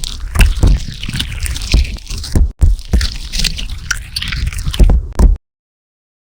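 Slime being squished and worked by hand: a dense stream of wet clicks and crackles that cuts off suddenly about five seconds in.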